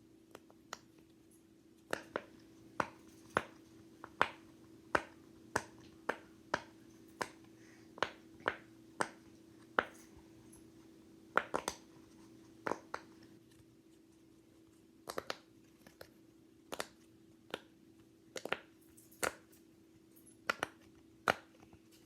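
Push-pop fidget toy being pressed bubble by bubble: a string of sharp little pops, about one or two a second, with a short pause about two-thirds of the way through.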